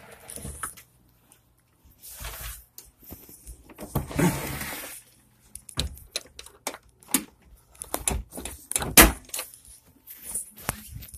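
Rustling and bumping of a phone being handled and covered, with scattered sharp clicks and knocks; the loudest knock comes about nine seconds in.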